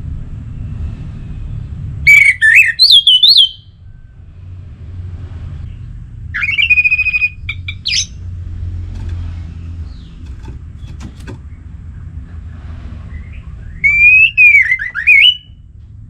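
Orange-headed thrush singing: three loud whistled phrases, each a second or so long and sweeping up and down in pitch, several seconds apart, over a steady low rumble.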